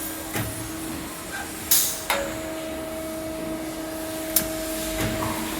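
Door closer endurance test rig cycling a door open and shut over a steady machine hum, with a short sharp hiss a little under two seconds in, a click and a soft thud near the end.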